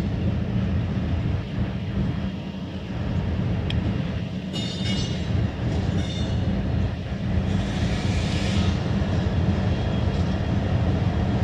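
CSX freight diesel locomotives, a GE ES44AC-H leading a C40-8 and an EMD SD70MAC, rolling slowly past with a steady low engine drone. There is a brief high-pitched squeal about halfway through and a short hiss a few seconds later.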